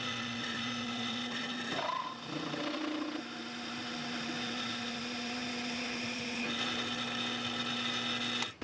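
Drill press running at a slowed belt speed, its hole saw cutting smoothly through a brass plate with a steady motor hum and the grind of the teeth in the metal. The sound cuts off suddenly just before the end.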